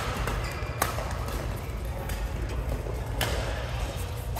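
Badminton rackets striking the shuttlecock in a doubles rally: sharp cracks near the start, about a second in, a little over three seconds in and again at the very end. A steady low hum runs underneath.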